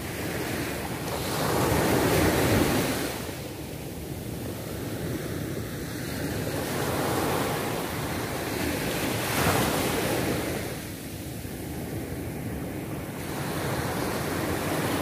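Ocean surf breaking on a beach: a steady roar that swells with each wave every few seconds, loudest about two seconds in, with wind on the microphone.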